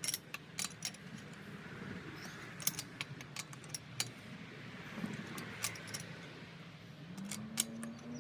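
A string of light, sharp clicks and clinks, scattered irregularly. About seven seconds in, a low hum rises in pitch and then holds steady.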